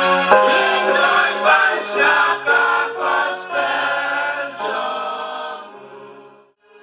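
A choir singing in harmony, with long held notes, fading out near the end.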